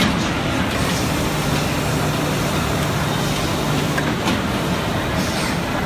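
Polyurethane injection moulding machine running: a steady mechanical din, with a low hum that comes in for about two seconds in the middle and a couple of light clicks about four seconds in.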